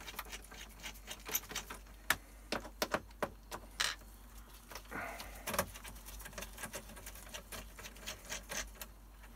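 Screwdriver backing the case screws out of the plastic back of a Dell P2415Q monitor: scattered small, quiet clicks and taps of metal on plastic, with a short rustle about five seconds in.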